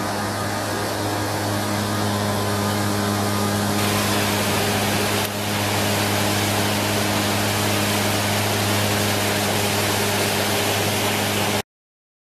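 Steady rush of waterfalls and river rapids, with a low steady hum underneath. The sound cuts off suddenly near the end.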